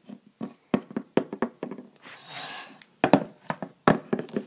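Small plastic toy pony figurines being hopped and set down on a hard surface: a run of irregular light clicks and knocks.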